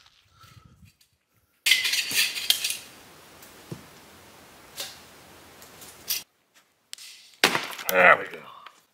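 Thin metal parts of a campfire grill clattering and clinking as they are handled, in two loud bursts: one about two seconds in and one near the end. A steady hiss and a single sharp click come in between.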